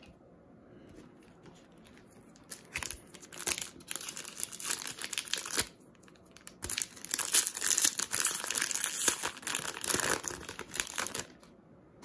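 Foil booster pack wrapper of a Magic: The Gathering Core Set 2020 promo pack crinkling and tearing as it is opened and the cards are pulled out. It starts about two and a half seconds in, pauses briefly near the middle, and stops about a second before the end.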